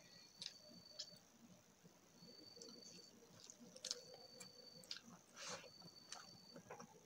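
Faint wet squishing and scattered clicks of fingers mashing boiled egg into rice against a steel plate, with soft chewing.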